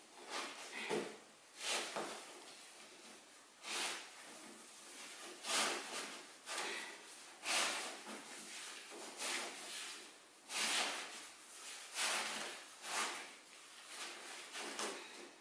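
Nylon mesh and fabric of a pop-up cat tent rustling and brushing as it is handled, in irregular swishes about once a second.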